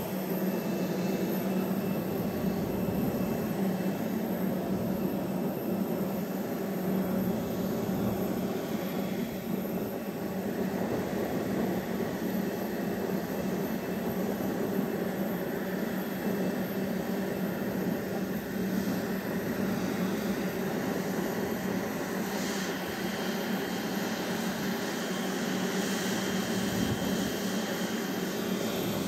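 Jet aircraft engines running on an airport apron: a steady drone with a hum and a hiss, unchanging throughout.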